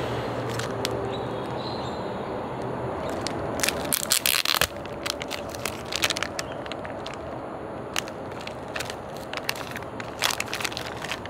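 Crinkling of the plastic wrapper on a pack of fresh ramen noodles as it is handled, with a loud burst of crackles about four seconds in and scattered crinkles after. A steady background noise runs underneath.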